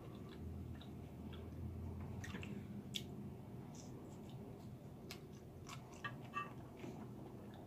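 Faint mouth sounds of someone chewing a spoonful of rice and vegetables, with a few light clicks of a wooden spoon scooping in a glass bowl.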